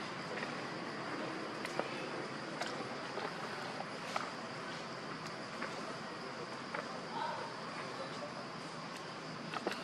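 Outdoor ambience of a steady, high, even insect drone, with scattered faint clicks and ticks throughout.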